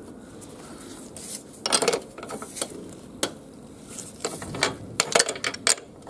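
Socket wrench with a 17 mm socket working a nut at a motorcycle's rear axle: a scattering of metal clicks and clinks, with a louder run of clicks about two seconds in and more near the end.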